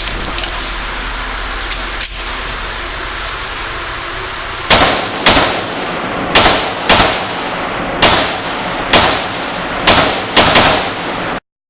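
Firearm shots on an indoor range: about nine shots at an uneven pace, some in quick pairs, each with an echoing tail, after a stretch of steady background noise; the sound cuts off abruptly near the end.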